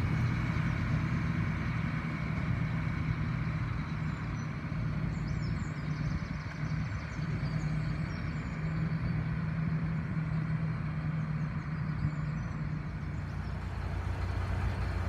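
Lorry engine running steadily at low revs, a constant low hum, with faint bird chirps a few seconds in.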